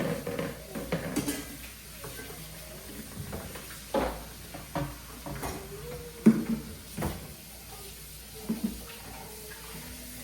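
Irregular knocks and clatter of household objects being handled, about seven sharp impacts spread over the stretch, the loudest about six seconds in.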